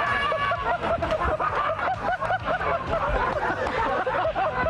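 Several people laughing together, their voices overlapping in continuous hearty laughter.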